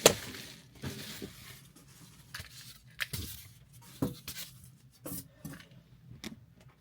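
Irregular clicks, knocks and a little rustling from a small portable mini fridge and its packaging being handled, with one sharper knock at the start.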